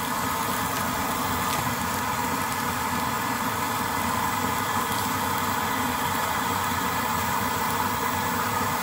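A 1920s brass Primus pressure stove burning at full flame, a steady, even rushing sound, while steak sizzles in an oiled frying pan on top. The stove has no simmer setting, so it runs flat out.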